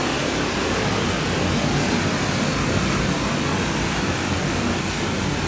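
Heavy hailstorm: a dense, steady clatter of hailstones pelting down onto the ground.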